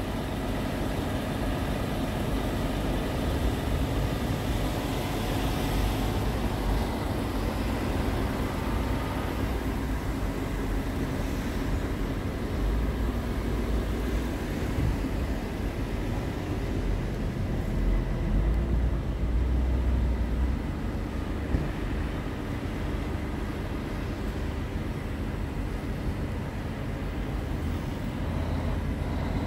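Scania P340 truck's diesel engine idling steadily.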